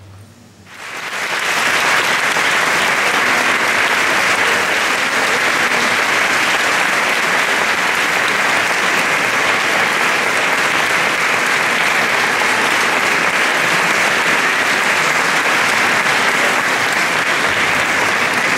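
Audience applauding, starting about a second in and then holding steady.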